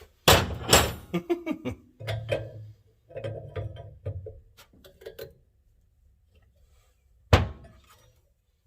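Metal wrench knocking and clanking against the fittings: a hard knock just after the start, a quick run of smaller knocks and clicks over the next two seconds, then softer handling noise, and another sharp knock near the end.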